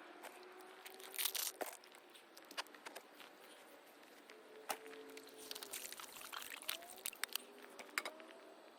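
Faint riverside sounds: scattered clicks and knocks, loudest about a second in, over a low hiss of water.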